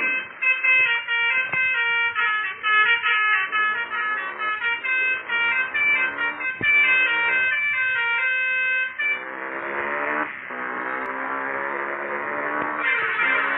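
A telolet basuri musical horn fitted to a motorcycle plays a quick tune of short stepped notes. After about nine seconds the separate notes give way to a denser, blurred run of tones.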